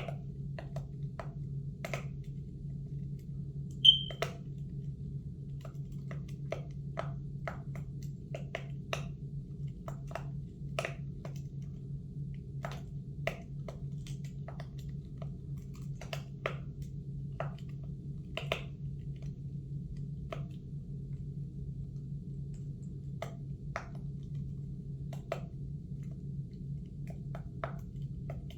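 Soft, irregular clicks from a pop-it fidget spinner being handled, over a steady low hum. A short, sharp high beep about four seconds in is the loudest sound.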